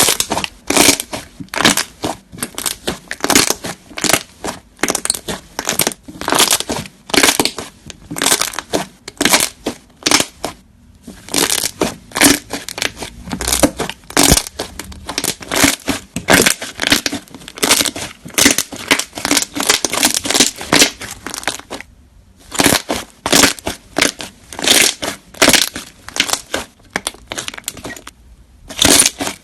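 Fluffy slime being squished and pressed, giving quick runs of wet crackling and popping, several a second, broken by three short silences.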